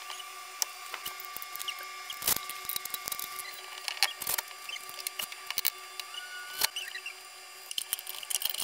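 Scattered light clicks and taps of small hardware and a frame being handled and fitted against a wall, over a steady faint hum, with a brief squeak about six and a half seconds in.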